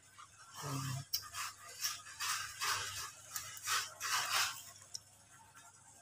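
Irregular scraping and rattling from tools and parts being handled during a washing machine repair, a quick run of short strokes lasting about three and a half seconds.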